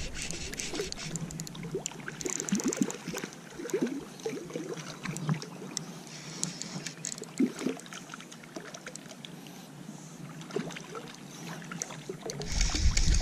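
A hooked rainbow trout splashing and thrashing at the water surface while being played on a fly rod, with scattered small clicks and gurgles. Wind rumble on the microphone comes in near the end.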